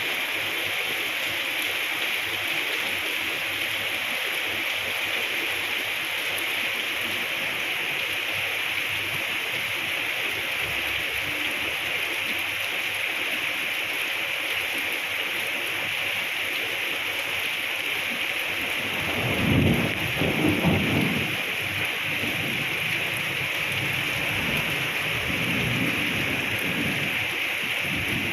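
Steady heavy rain falling, an even hiss throughout. About twenty seconds in, a louder low rumble swells for a couple of seconds, with weaker low rumbling a few seconds later.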